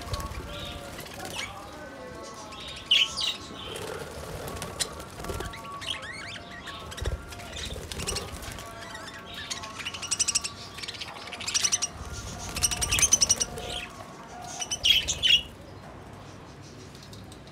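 Caged budgerigars warbling and chattering without a break, with louder bursts of sharp chirps and flurries of wing flapping as birds flutter about the cage.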